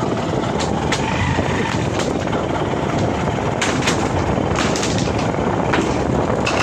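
Motorcycle riding across a pontoon bridge: a steady rumble of engine, tyres and wind, with irregular sharp clanks as the wheels roll over loose steel plates laid on the wooden deck.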